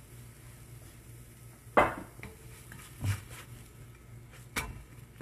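Spatula clinking and scraping against a stainless steel frying pan while a pancake is lifted and flipped: three sharp knocks, the loudest about two seconds in with a brief metallic ring.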